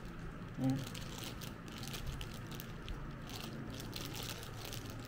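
Thin plastic bag crinkling and rustling in the hands, in irregular small crackles, as shredded ginger is shaken out of it.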